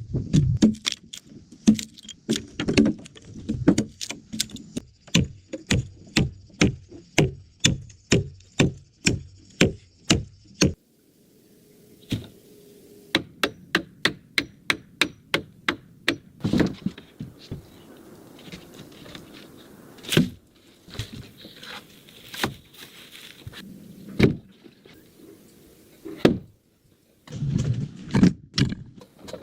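Hand-tool blows on wood: a steady run of strikes about two a second that breaks off suddenly about ten seconds in, followed by sparser, irregular knocks and scrapes.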